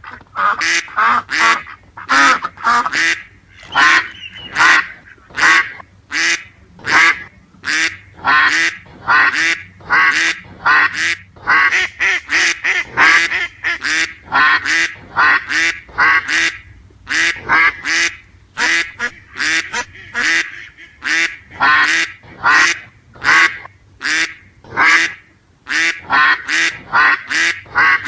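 Ducks quacking over and over: short, harsh, nasal quacks coming about one or two a second with brief gaps between them.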